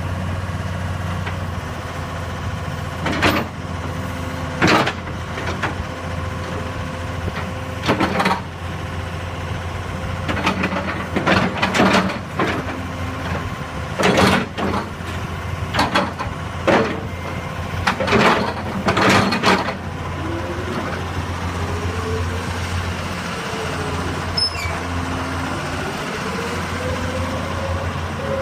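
Komatsu PC200 excavator's diesel engine running steadily, with a dozen or so short, loud noisy bursts over the first two-thirds. Later, a tone rises and falls twice.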